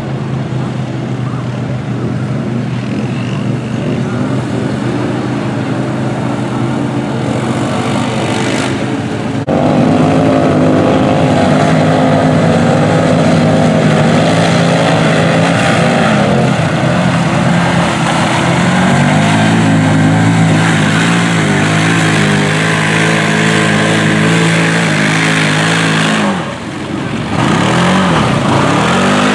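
Side-by-side UTV engines running under load and revving as the machines churn through a mud bog, the pitch rising and falling with the throttle. The sound jumps louder about nine seconds in, and dips briefly near the end.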